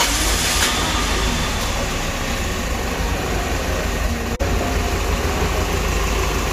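Toyota 4A-GE 20-valve 'silvertop' inline-four with individual throttle bodies, idling steadily and quietly just after its first start following an engine swap. The high end settles within the first half-second, and there is a split-second drop-out in the sound about four seconds in.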